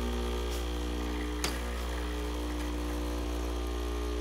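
A steady electrical hum with several fixed tones, and a single sharp click about a second and a half in.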